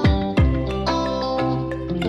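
Background music: sustained chords with two deep drum hits in the first half-second.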